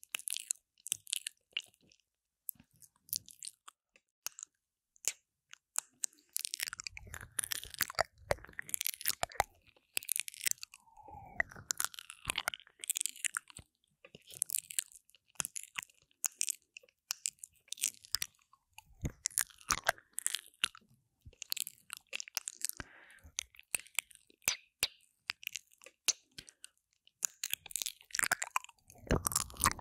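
Wet mouth sounds made right on a binaural microphone's silicone ear. Lips and tongue give irregular clicks and smacks in clusters, with short quiet gaps between them.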